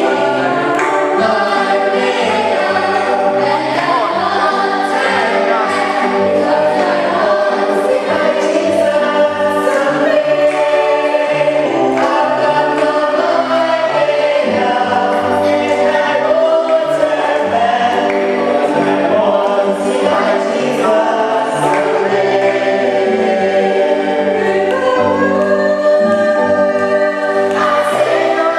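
A church congregation singing a hymn together, the voices carried over low accompanying notes that move in steps beneath them.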